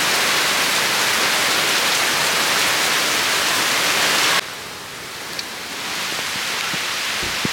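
Heavy rain falling in a dense, steady hiss. About four seconds in it drops suddenly to a softer rain with a few scattered drip ticks.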